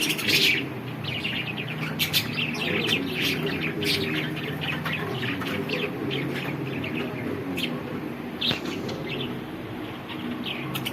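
Lovebirds chirping, many short high chirps in quick succession, loudest in the first half-second, over a steady low hum.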